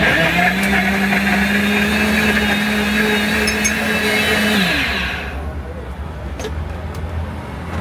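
Countertop blender motor running at a steady pitch while puréeing papaya chunks, then switched off about four and a half seconds in, its pitch falling as it winds down.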